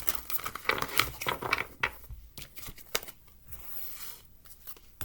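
Cards being shuffled and handled: an irregular run of quick papery flicks and rustles.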